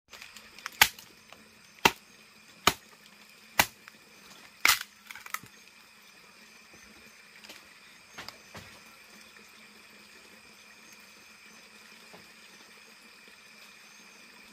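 Machete chopping a wooden stick: about six sharp chops roughly a second apart, then a few faint knocks of sticks being handled, over a steady drone of crickets.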